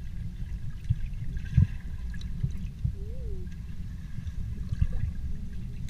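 Underwater sound picked up by a submerged camera: a muffled low rumble of moving water with scattered dull knocks, the loudest about a second and a half in.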